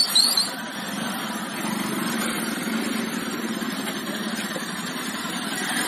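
Bajaj Pulsar motorcycle engine running at low revs while the bike is ridden slowly between cones, with a short sharp sound at the very start.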